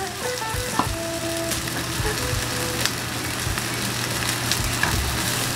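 Korean-style pancake batter frying in a hot pan, with a steady sizzle and one sharp click a little under a second in.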